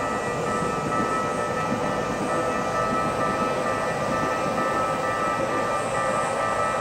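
Railway level-crossing warning bell ringing steadily, its tones held at several pitches, over the rumble of a train passing.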